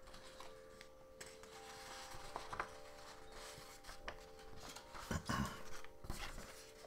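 Soft rustling and handling noise close to the microphone, with a few light clicks and knocks, the loudest a little after the middle.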